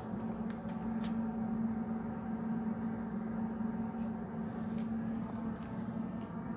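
Steady mechanical hum in a large store: one low droning tone with fainter overtones that never changes. A few faint clicks come from the handheld phone being moved.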